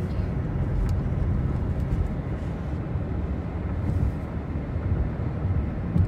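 Steady low rumble of a car driving, heard from inside the cabin, with a faint click about a second in.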